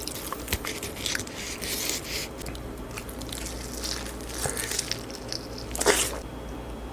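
Close-miked eating: a person biting and chewing crunchy, wet food, a run of short crunches and smacks, the loudest about six seconds in.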